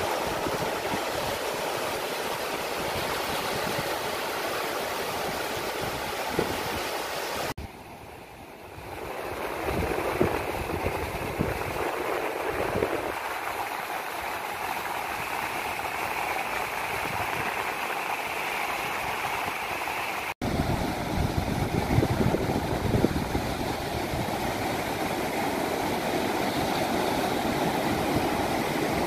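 Sea surf breaking and washing onto a sandy beach: a steady rushing noise, with a brief drop in level about eight seconds in.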